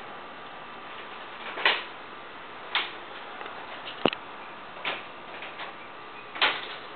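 Camera handling noise: a steady hiss with five short scrapes about a second apart and a sharp click about four seconds in, as the camera is moved.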